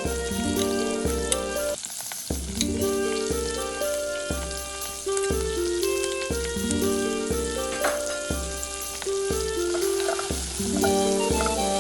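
Food sizzling and crackling as it fries in a pan, under background instrumental music with a melody and bass line.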